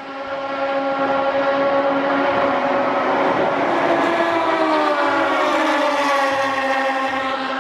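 Radical prototype race cars at high revs passing on the track, their Hayabusa motorcycle-based engines giving a high, sustained engine note. The note swells over the first second and its pitch eases down slightly about halfway through.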